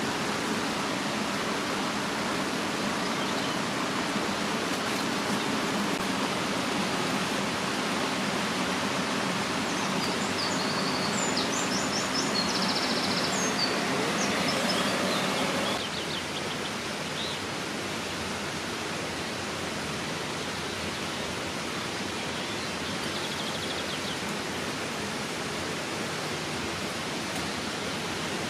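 Steady outdoor rushing noise, with a few short, high bird-like chirps in the middle; the level drops a little about sixteen seconds in.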